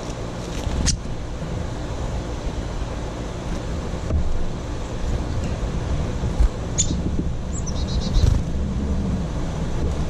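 Wind rumbling steadily on the microphone, with a sharp click about a second in. Near the end, a small bird gives a single high chirp, then a falling note and a quick run of about five short notes.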